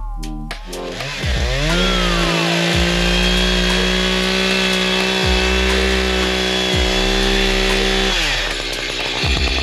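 Echo CS-590 Timber Wolf two-stroke chainsaw revving up to full throttle about a second in, holding a steady high pitch for about six seconds, then dropping back near the end.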